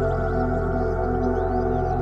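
Ambient background music: sustained held tones over a steady low drone.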